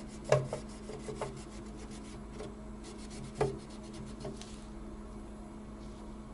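A damp cloth rubbing and scraping across the slats of a plastic ventilation grille in short strokes, with two louder scrapes about a third of a second in and about three and a half seconds in. A steady low hum runs underneath.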